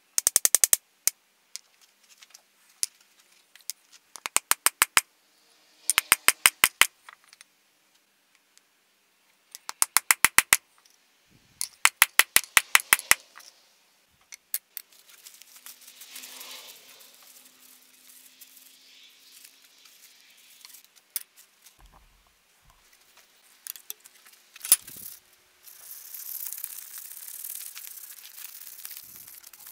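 Quick runs of sharp taps, several in a row about ten a second, through the first half. Near the end comes the hiss of sandpaper rubbing on a turned wooden drawknife handle.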